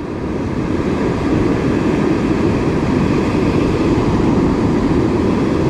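Ocean surf breaking and washing up the sand: a steady low rush with no distinct events.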